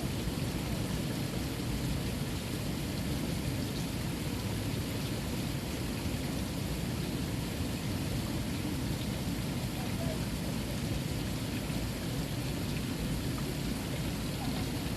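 Water fountain running: a steady rushing splash of falling water with no change.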